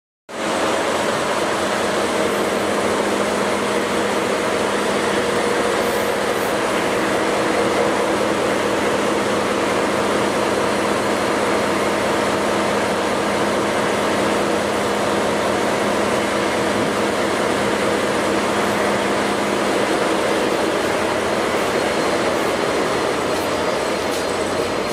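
Steady hum and hiss of a stationary Tobu Spacia electric limited-express train's onboard equipment, with a few constant tones, running on unchanged.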